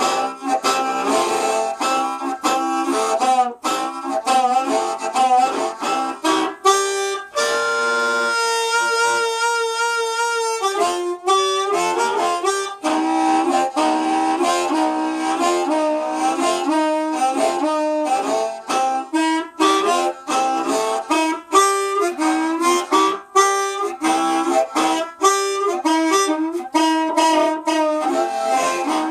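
Harmonica played solo in quick rhythmic chords, with one long held, wavering note about seven seconds in before the quick chording resumes.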